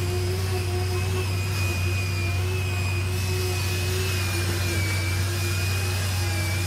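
Construction machinery running steadily on a concrete slab pour: a deep hum under steady high-pitched whining tones that waver slightly in pitch.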